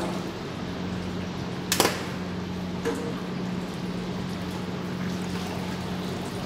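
Steady background hum with a constant low tone under an even hiss, broken by one sharp click a little under two seconds in and a softer click about a second later.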